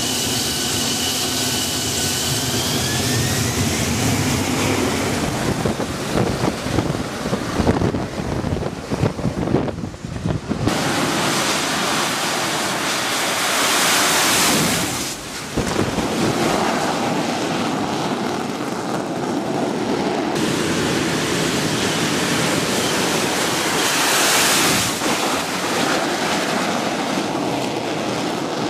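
AV-8B Harrier II jet's Pegasus turbofan engine running at high power: a loud, steady rushing roar. A turbine whine shifts in pitch during the first few seconds, and the roar changes abruptly several times.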